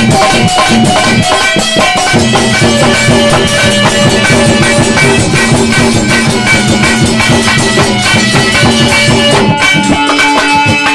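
Live bhajan accompaniment playing an instrumental passage between sung lines: a sustained melody over a steady drum beat.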